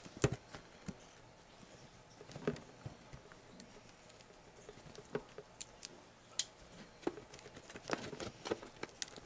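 Faint, scattered taps, clicks and scrapes of a mystery box being handled and opened, coming at irregular moments and most frequent near the end.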